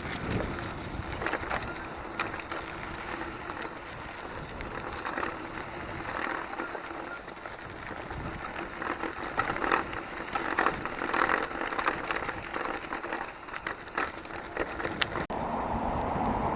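Mountain bike being ridden over an unpaved forest road: a steady rough rolling noise from the tyres, with many sharp clicks and knocks as the bike rattles over the surface.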